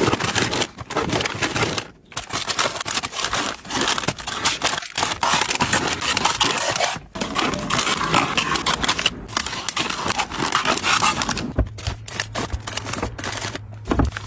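Plastic snack bags crinkling and rustling as they are handled and set into plastic storage bins, with small knocks and scrapes of the bins. A low steady hum comes in near the end.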